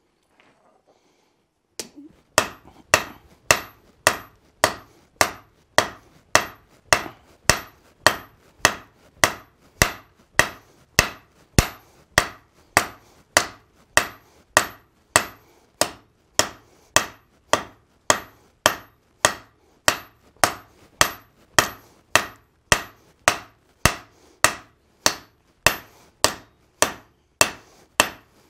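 Blacksmith's hand hammer striking red-hot steel on an anvil, starting about two seconds in. The blows come in a steady rhythm, a little under two a second, each with a short high ring: forging the axe body to shape.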